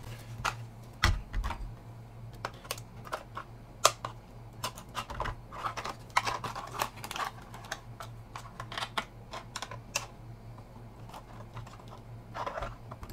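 Irregular light clicks and taps of hard plastic being handled: a Lexan RC crawler body and small chassis knocking together as the body is set onto the chassis, over a steady low hum.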